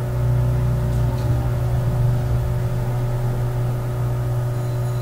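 A steady low hum with a few fixed tones above it, like an electric motor or fan running.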